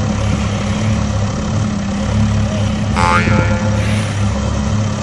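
Steady low engine drone like a truck idling, with a pulsing hum. About three seconds in, a brief higher-pitched sound cuts in over it.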